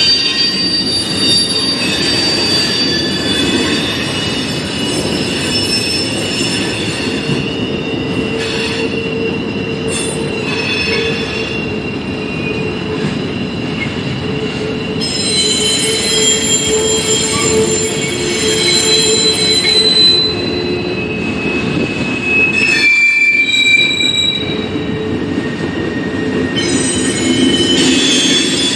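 Freight train cars rolling past with a steady rumble, and their wheels squealing on the rails in several high, held tones that shift and change as different cars go by.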